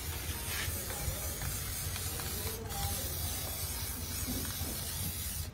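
Aerosol spray-paint can spraying in one long, steady hiss as paint is sprayed onto a tractor axle part.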